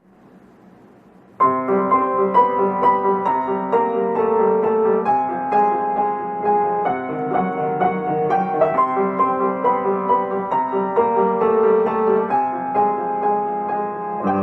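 Solo piano begins playing about a second and a half in, after a faint hiss. It plays a slow, gentle melody over sustained chords, with notes struck in a steady pulse.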